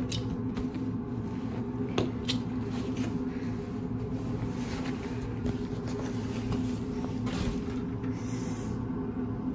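Steady low hum of the vessel's machinery and ventilation in a small cabin, with a few sharp clicks and rustles as a life jacket is unbuckled and taken off, the clearest click about two seconds in.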